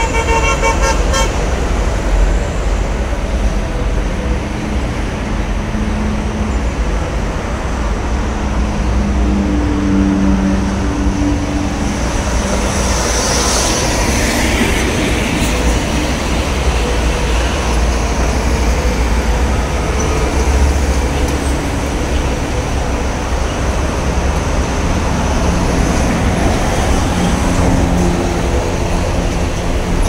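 Heavy toll-road traffic: trucks and cars passing close by with a steady tyre and engine rumble, truck engines droning as they go past. A vehicle horn sounds briefly at the very start, and a short hiss comes near the middle.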